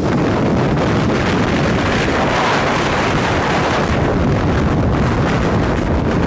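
Strong storm wind rushing and buffeting the microphone, a loud, dense rush that swells in a gust about two to three seconds in.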